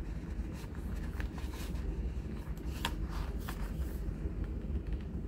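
Paper handling: the glossy pages of an album photobook rustle and crackle as they are smoothed flat and a stiff printed card is slid out from between them, in a string of short, irregular crinkles, the sharpest about three seconds in. A steady low rumble runs underneath.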